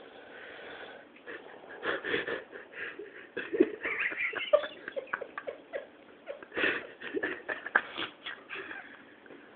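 Irregular snoring in rough bursts, with sharp snorts about two seconds in, around four seconds, and again near seven seconds.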